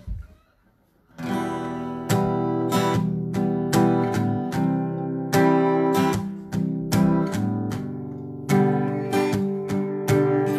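Acoustic guitar strummed in a steady rhythm as a song intro, starting about a second in after a short silence.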